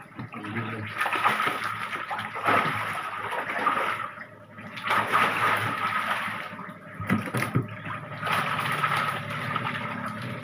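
Shallow water splashing and sloshing in several bursts as snakehead fish thrash and people wade through a tarp-lined pond, grabbing at them.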